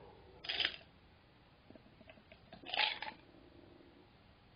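A man's two short, sharp breaths without voice, about half a second in and again near three seconds, as he suffers the burn of extremely spicy noodles.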